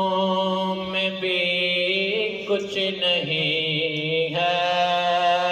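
A man's voice singing an Urdu naat into a microphone, drawing out long held, ornamented notes between lines of the verse, with the pitch shifting a few times.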